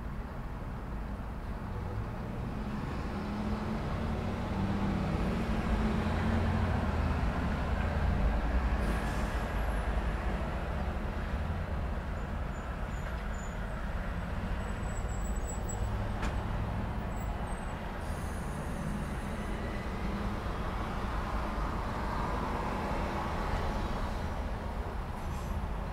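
Road traffic at a busy intersection: a steady wash of passing cars, with a heavy vehicle's low engine rumble building to its loudest about eight seconds in, then easing. A few faint high squeaks come midway.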